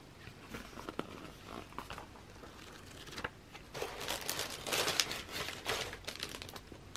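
Clear plastic packaging crinkling as it is handled, with a few light clicks at first, then louder and denser crinkling from about four to six seconds in.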